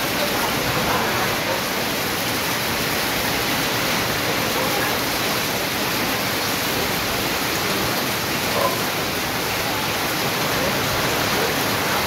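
Heavy rain falling steadily on corrugated metal roofing and foliage, with runoff pouring off a roof edge: a constant, even hiss.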